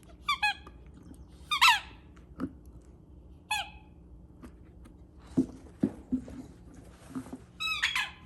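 A squeaky dog toy being squeezed again and again, giving short squeaks that fall in pitch, in a cluster near the end. There are a few soft knocks between them.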